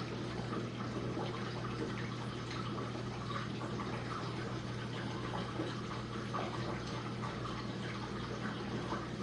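Jenn-Air dishwasher running a cycle: water splashing and spraying inside the tub over the steady hum of its pump motor.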